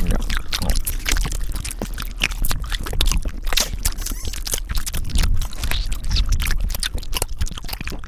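A man chewing loudly: a dense, continuous run of sharp mouth clicks and smacks.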